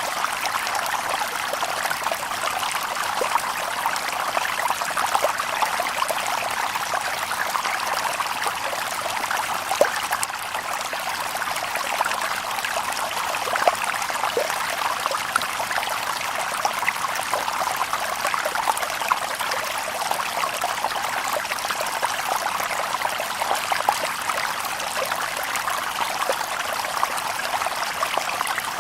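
Shallow river babbling over stones: a steady rush of running water with many small splashes and trickles, no birds.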